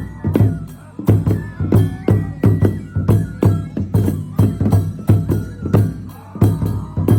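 Traditional Japanese festival music: a drum struck about twice a second with jingling metallic strikes on the beat, under a thin wavering flute-like melody.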